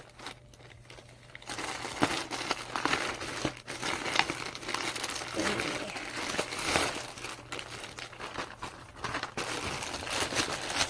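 Plastic packaging crinkling and rustling as it is handled and opened, in irregular crackly rustles that start about a second and a half in.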